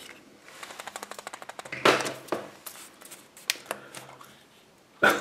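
Light plastic clicks and snaps from a yellow Kinder Surprise capsule being handled and prised open: a quick run of small clicks at the start, then a couple of sharper snaps about two seconds in, and a few more light clicks later.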